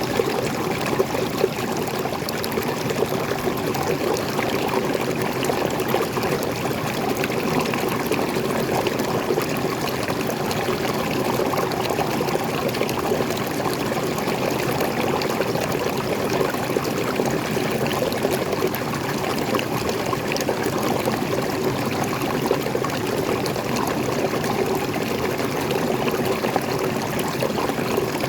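Fresh water pouring and splashing steadily over a small forest waterfall, in a continuous even rush with no breaks.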